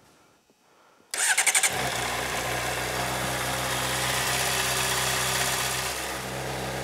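A 2008 Honda CBR600RR's inline-four engine turned over by the electric starter about a second in, catching within a second and settling into a steady idle. It is being run after an oil change to circulate the fresh oil and fill the new oil filter.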